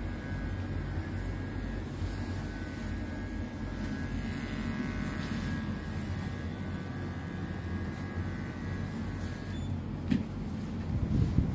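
Cordless electric pet hair clipper running steadily as it shaves a cat's coat. Its whine dies away a couple of seconds before the end, followed by a sharp click.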